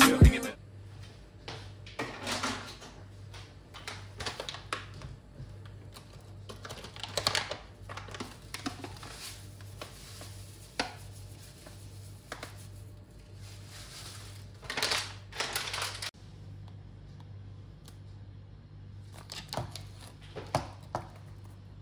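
Quiet room tone with a low steady hum and scattered faint clicks and rustles; the background changes abruptly about two-thirds of the way through.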